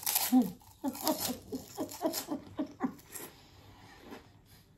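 A woman laughing: a quick run of short laughs, about four a second, for the first three seconds, then trailing off.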